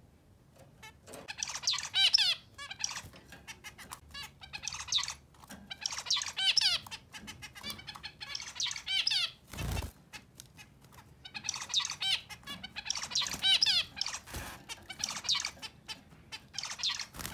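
Male zebra finch singing his short song phrase over and over, about eight times, courting the female beside him. One dull thump comes about halfway through.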